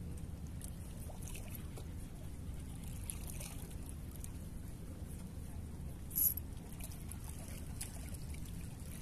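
Sea water washing and trickling against shore rocks over a steady low rumble, with one short, sharp high hiss about six seconds in.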